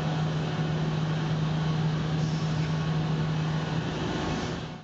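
Steady low mechanical hum over a broad hiss, ending abruptly near the end.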